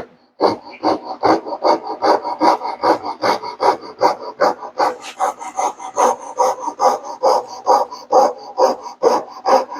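Coping saw cutting by hand into a 1x4 board, a steady back-and-forth of rasping strokes at about three a second.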